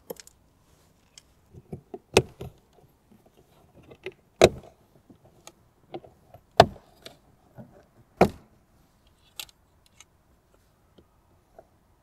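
Plastic retaining clips of a BMW interior door-panel trim strip snapping loose one by one as the strip is pried off: four sharp snaps about two seconds apart, with lighter clicks and plastic rattles between them.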